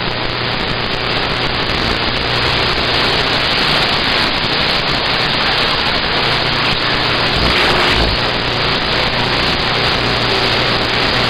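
CB radio static: a steady, loud hiss from the receiver on an open channel between transmissions, with a faint low hum under it.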